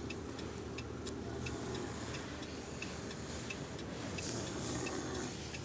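Faint regular ticking, about three ticks a second, over a steady low hum, with a soft hiss a little after four seconds in.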